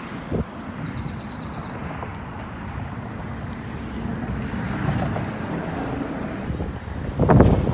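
Wind buffeting the microphone over a steady outdoor rumble, with a short thump just after the start and heavier gusts near the end.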